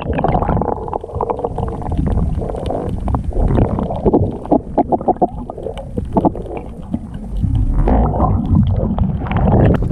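Muffled underwater water noise heard through a submerged camera: dull sloshing and gurgling with bubbles, and a run of sharp clicks about halfway through.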